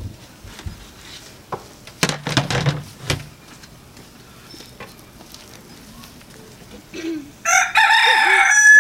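A rooster crows loudly near the end, one long drawn-out cock-a-doodle-doo. Earlier there is a brief rustling scrape.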